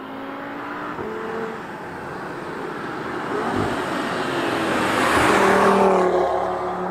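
Audi TT RS with sports exhaust accelerating up to and past the listener, its five-cylinder engine note climbing and growing steadily louder to a peak about five and a half seconds in, then dropping in pitch and fading as it goes by.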